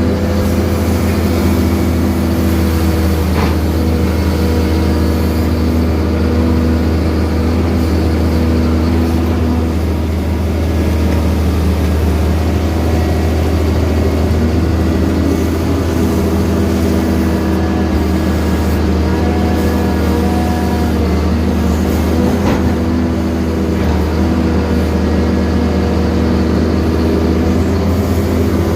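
Caterpillar 320 CL hydraulic excavator's diesel engine running steadily under load while it digs mud out of a drainage ditch, with a couple of faint knocks.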